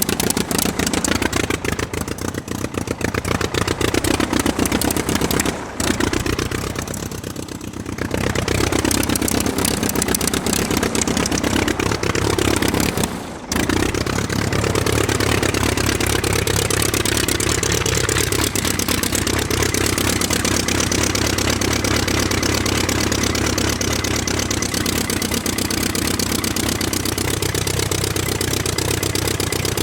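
Volkswagen Golf engine revving up and down repeatedly on an autocross run, with short sharp drops in the sound about six and thirteen seconds in.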